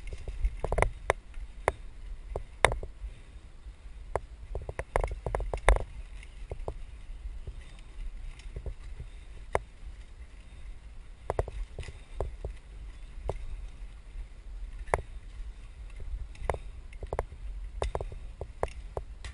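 Mountain bike riding fast down a dirt singletrack, heard through a helmet camera's microphone: a steady low rumble with frequent sharp clicks and knocks as the bike jolts over roots and bumps, in clusters around one second in, between four and six seconds, and again in the last few seconds.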